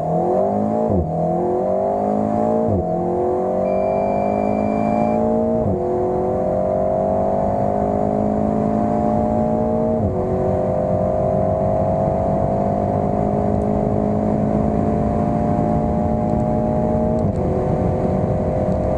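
2019 Alpine A110's 1.8-litre turbocharged four-cylinder with the optional sport exhaust, heard from inside the cabin, accelerating hard from a launch-control start. The engine note climbs and drops back at each of five dual-clutch upshifts, which come further apart as the gears rise. A short high beep sounds about four seconds in.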